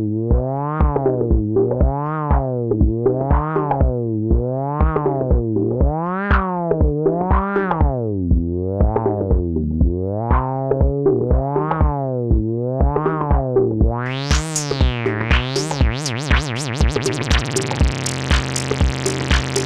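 Softube Model 72 Minimoog-style software synthesizer playing a pitched sequence whose filter sweeps open and shut over and over, over a steady drum-machine kick beat. About 14 s in, a high sweeping sound enters and the texture thickens with held low notes.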